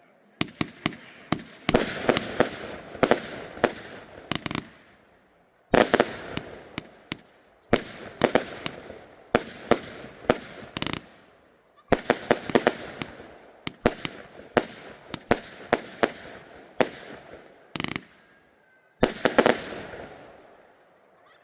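Lesli 'Creepy Gryphon' compound firework battery firing: volleys of sharp bangs over crackling, coming in four bursts separated by brief pauses.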